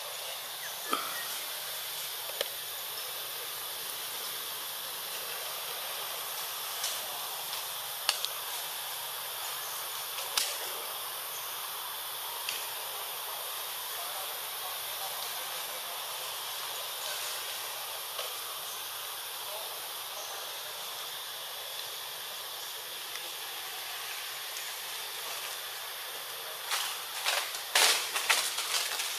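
Steady high hiss of forest background, broken by a few single sharp clicks and then a quick cluster of louder sharp clicks and rustles near the end.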